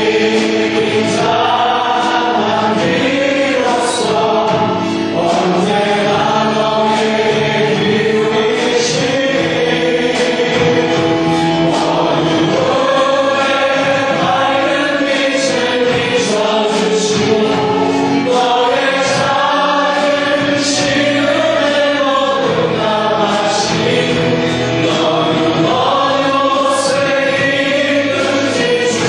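Church praise team of mixed voices singing a worship song together with a live band, a drum kit's cymbals struck every second or few.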